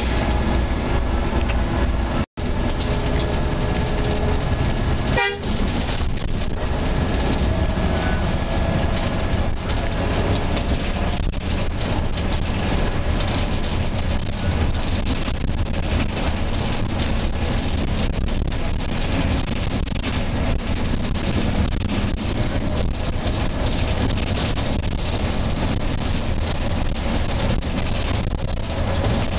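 Steady, loud engine and road rumble inside a moving intercity coach bus at speed. The sound cuts out for a split second about two seconds in.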